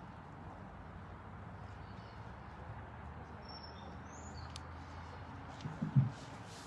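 Outdoor ambience: a steady low background noise with a few faint bird chirps. A short low thump about six seconds in.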